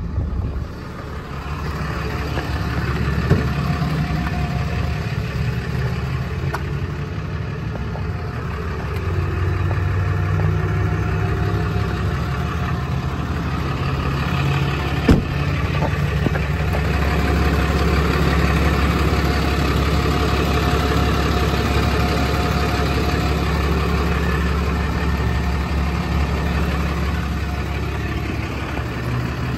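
6.7-litre Cummins inline-six turbodiesel in a Dodge Ram 5500 idling steadily. Two sharp clicks come through, about three and fifteen seconds in.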